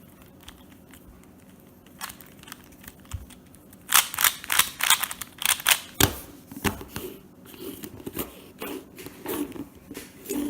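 Valk 3 speed cube being turned by hand during a solve: plastic layers clicking and clacking in irregular flurries, with a rapid run of turns about four to six seconds in.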